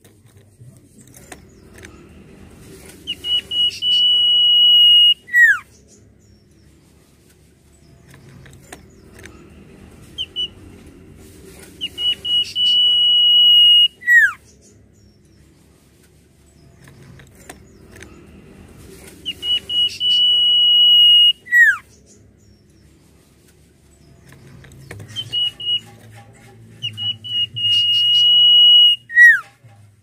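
Common iora (cipoh) whistling its song four times, about every eight seconds: a few short notes, then a long steady high whistle held for about two seconds, ending in a quick falling note.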